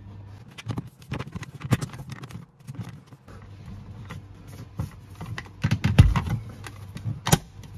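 Plastic interior trim of a Tesla Model Y's overhead camera and mirror housing being handled and pressed up into the headliner: a run of small clicks, taps and rattles, with a heavier thump about six seconds in and a sharp click near the end as the trim is pushed into its clips.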